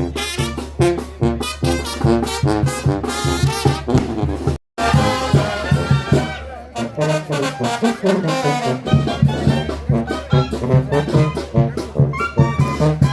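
Brass band music led by trombones and trumpets, with a brief dropout about four and a half seconds in.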